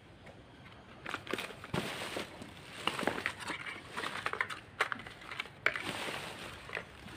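Black plastic garbage bags rustling and crinkling as hands rummage through them, with irregular clicks and knocks from items being handled, starting about a second in.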